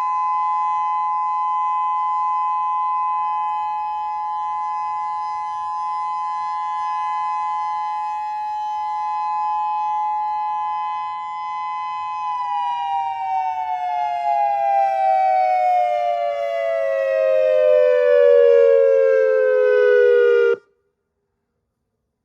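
Whelen WPS-3000 16-driver electronic outdoor warning siren sounding its steady full-alert tone, a chord of two close notes. About halfway through the pitch glides steadily down, like a mechanical siren winding down, then the sound cuts off suddenly as the alert ends.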